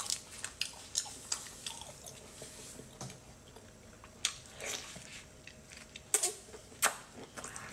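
A large red prawn being peeled by gloved hands, its shell cracking in sharp clicks, then bitten and chewed with wet, squishy mouth sounds, with the loudest clicks near the end.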